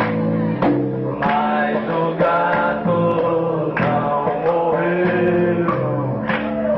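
Live band music: voices singing over electric guitar, bass and drums, with sharp drum hits cutting through.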